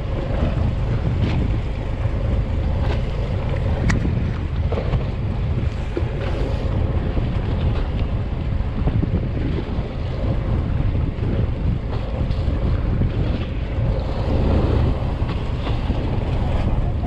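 Wind buffeting the microphone on a fishing boat at sea, over a steady low rumble and the wash of the water, with a faint steady hum.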